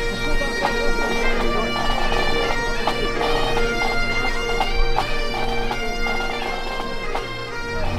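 Great Highland bagpipes playing a tune over their steady drones, the melody moving between held notes broken by quick grace-note flicks.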